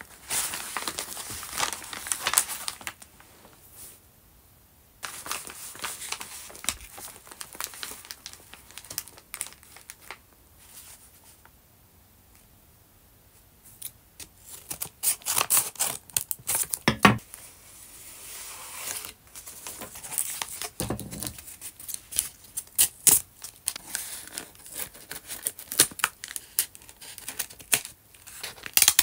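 Paper envelopes and a cardboard mailer being handled and cut open with scissors: irregular bursts of paper rustling and crinkling, then, about halfway in, many sharp snips of the scissor blades through paper and card.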